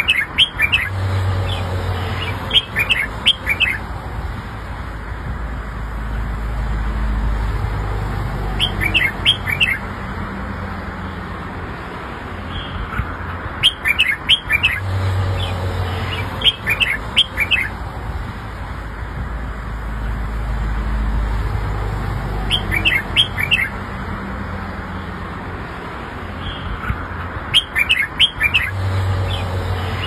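Red-whiskered bulbul singing: short phrases of quick, clear whistled notes, repeated every few seconds, over a low steady background rumble.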